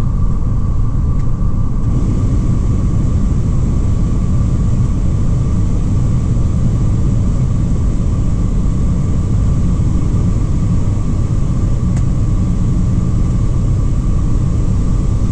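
2004 GMC Savana 3500's engine running steadily, heard from inside the cab along with the dashboard blower fan pushing air through the vents. The rush of air gets a little stronger about two seconds in, as the air conditioning is switched on.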